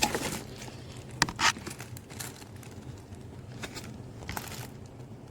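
Handling noise from the wet/dry vacuum's top piece being turned over in the hands: a few scattered light clicks and knocks over a low background hum.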